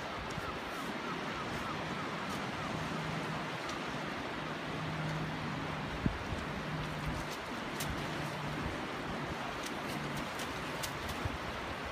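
Shallow sea surf washing in over a flat sandy beach, a steady hiss of water, with a single sharp knock about six seconds in.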